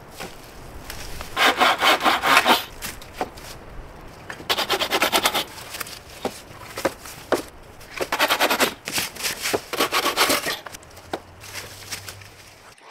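Hand saw cutting through wood in four bursts of quick back-and-forth strokes, with short pauses and a few light knocks between them.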